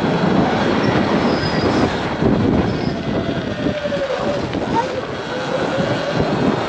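Sur-Ron electric dirt bike being ridden: a wavering electric motor and drive whine that rises and falls in pitch with speed, over a rushing noise.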